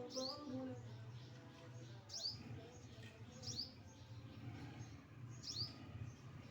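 A small bird chirping: four short, sharp high chirps, each dropping quickly in pitch, spaced one to two seconds apart, over a steady low hum.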